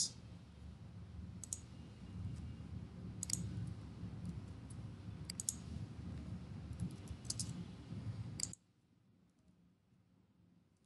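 A few short groups of computer keyboard clicks, two or three at a time, over a low steady hum. The hum cuts off suddenly about eight and a half seconds in.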